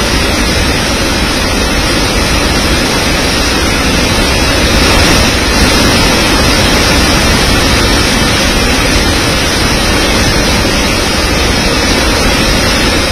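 Waterfall in spate: a river in flood pouring over rocks, a loud, steady rush of water.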